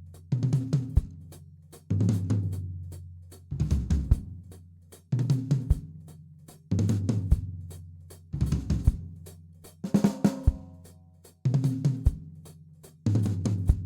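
Drum kit played in a steady groove: the hi-hat keeps time while a short, swung four-note pattern with bass drum underneath repeats about every second and a half.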